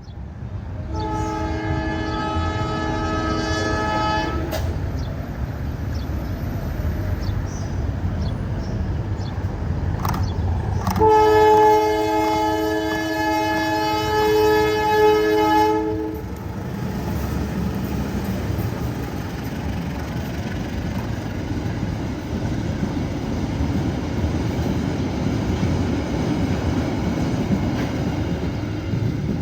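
Diesel locomotive horn sounding two blasts, a short one of about three seconds and then a longer, louder one of about five seconds, over the steady rumble of the locomotive's diesel engine.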